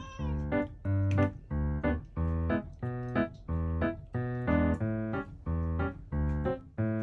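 Background keyboard music: short chords played in a steady, bouncy rhythm of about two a second.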